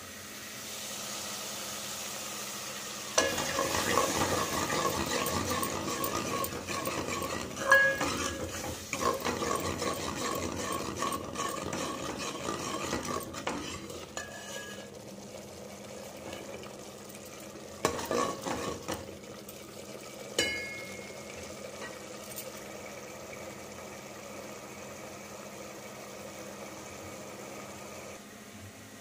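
A metal spoon stirring and scraping a thick masala in a pan, with a sizzle. The stirring is busiest from about three seconds in to the middle, with a few sharp clinks of the spoon against the pan, and it goes quieter in the second half.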